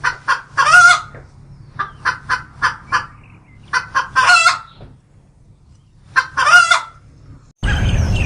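A bird's harsh, repeated calls: groups of short notes, each run ending in a longer call, three times over. The sound cuts abruptly near the end to a different, noisier recording.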